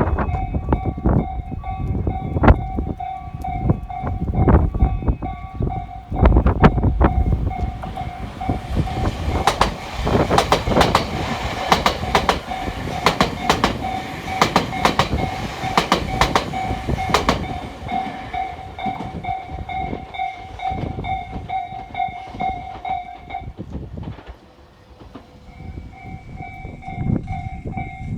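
A Tobu limited express electric train passing, its wheels clicking quickly over the rail joints for several seconds near the middle. Strong wind buffets the microphone throughout, and a warning bell rings in steady rapid repeats, pausing briefly near the end.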